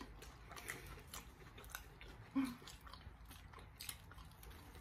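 Faint close-up chewing of a fried Korean corn dog: soft crunches and wet mouth clicks scattered through, with a brief low hum about halfway.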